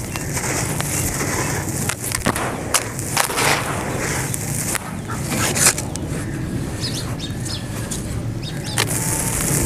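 Dry, gritty sand-and-cement chunk crumbled by hand, grit pouring into a tub with a steady hiss and many small crunchy crackles.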